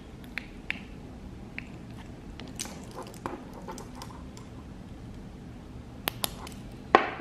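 Light scattered clicks and taps of hands handling a steel wristwatch and a small plastic torch held against its dial, with two sharper clicks about six seconds in and a louder click near the end.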